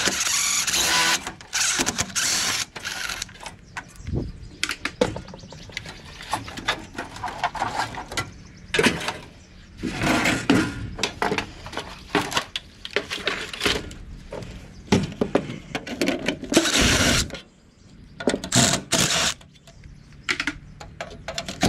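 Irregular metal clanks, knocks and rattles as an air-conditioner unit is worked apart for scrap, with a few brief noisy bursts between them.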